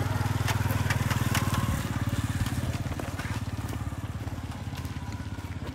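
Motorbike engine running steadily, a low rapid pulsing rumble that eases off a little near the end.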